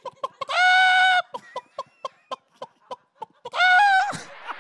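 A man imitating a hen: a steady run of short clucks, about four a second, broken twice by a long drawn-out squawk. Laughter from the listeners comes in near the end.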